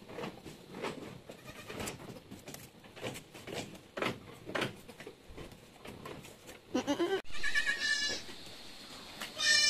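Anglo-Nubian goats bleating: one short low bleat about seven seconds in, then high-pitched bleats twice near the end, over faint rustling and knocking in the pen.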